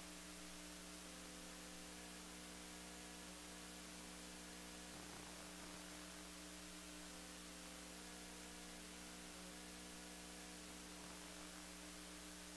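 Near silence: a faint, steady electrical mains hum with light hiss from the recording chain.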